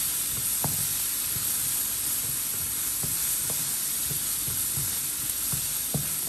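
Chopped onion frying in hot oil in a pan, a steady sizzle, with a few light knocks about a second in, midway and near the end.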